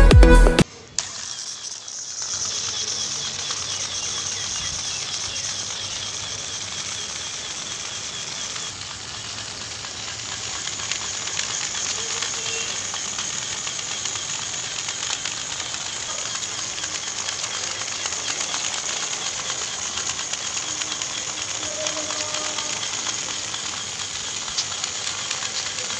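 Small DC motor of a homemade matchbox toy tractor running steadily, starting about two seconds in: a high buzzing whir with a fine rattle as the toy's wheels roll over rough concrete.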